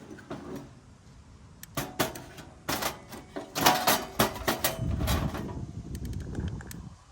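Handling noises: a quick run of knocks, clicks and rustles, busiest in the middle, over a low rumble.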